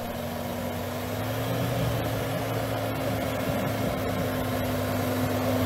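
Toyota Hilux pickup's engine running steadily as the truck edges through deep snow, a low hum that grows a little louder about a second in.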